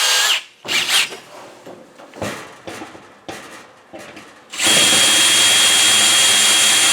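Electric drill with a 3/16-inch bit boring a grease hole into a Frigidaire dryer's rear panel above the bearing cup. It goes in short, uneven bursts as the bit binds, then runs steadily with a high whine from a little before the five-second mark.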